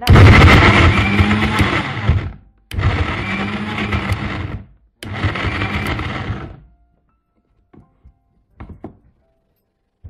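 Electric mixer grinder (mixie) pulsed three times, about two seconds each with short gaps, coarsely crushing whole lemons; each run starts abruptly and tails off as the motor slows. A few faint clicks follow as the jar is handled.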